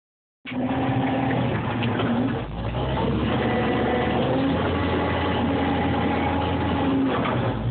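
Cat 535C skidder's diesel engine running as the machine drives, heard from inside the cab. The engine note wavers and dips briefly about two and a half seconds in, with a few knocks and rattles from the machine.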